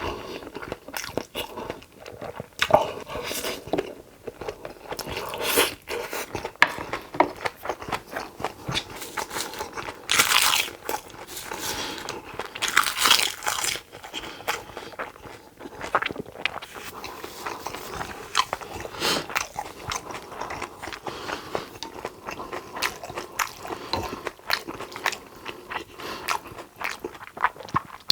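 A person chewing and biting mouthfuls of food close to the microphone: a steady run of crunches and wet clicks, with a few longer, louder stretches of eating noise about ten and thirteen seconds in.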